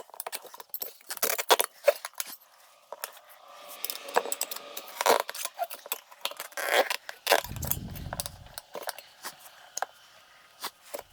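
Metal tire tools clinking and scraping against a motorcycle wheel rim while the tire bead is worked loose by hand: many sharp, irregular clicks and clinks, with a brief low rumble about two-thirds of the way through.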